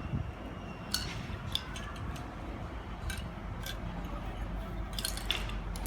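Scattered light clicks and clinks of small parts being handled, with a cluster of them about five seconds in, over a steady low rumble.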